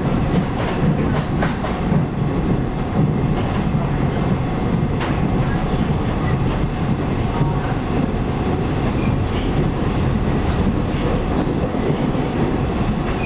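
Taiwan Railways local train running at speed, heard from inside the carriage: a steady rumble of wheels on rail with occasional faint clicks.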